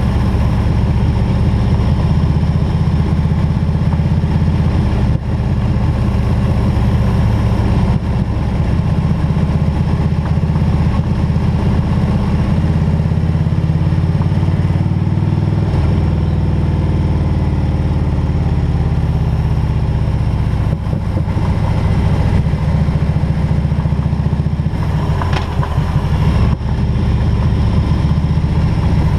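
Harley-Davidson Road King's V-twin engine running steadily on the move, its pitch shifting about halfway through.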